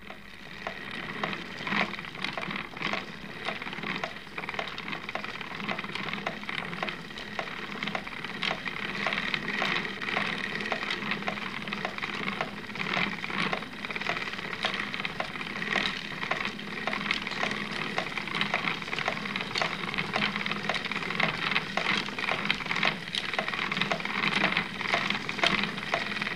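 Wooden spinning wheel running, clacking steadily about twice a second over a steady hiss.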